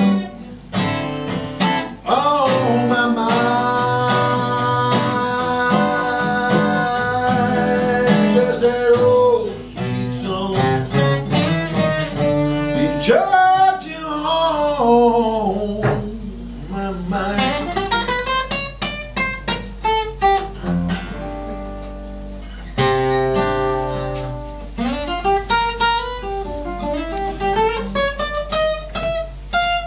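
A man singing and fingerpicking a steel-string acoustic guitar through the closing bars of the song, with a long held sung note in the first third, then picked guitar runs with sliding notes to the finish.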